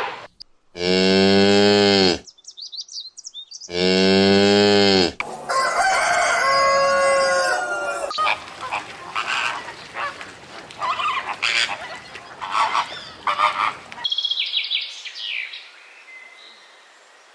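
A cow mooing twice, then a rooster crowing, followed by hens clucking in quick short calls, with faint high chirps near the end.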